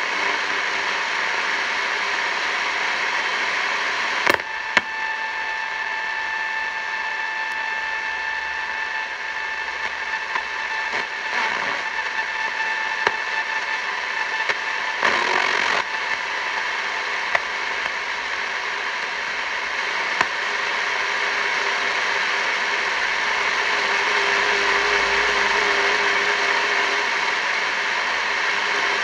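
Grundig Ocean Boy 210 radio hissing with static while being tuned between stations, with no station coming through. A steady whistle holds from about 4 to 15 seconds in, and a few sharp crackles and a short louder rush of noise come through the hiss.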